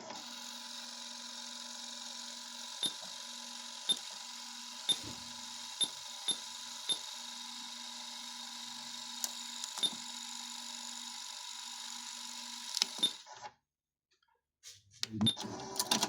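Sony XR-C6200R car cassette radio running with no programme: a steady electrical hum with faint tones, broken by a series of sharp mechanical clicks a second or so apart. Near the end it cuts out to silence, then clicks again.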